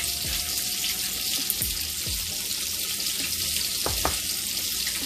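Steady sizzling hiss from pans heating on a gas stovetop, with a few soft knocks as a seasoning tin is shaken over the pan.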